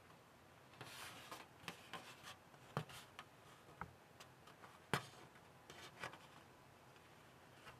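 Faint handling noise of a plastic model-kit hull half on its sprue: soft rubbing and rustling with scattered light clicks and taps, the two sharpest a bit under three seconds in and about five seconds in.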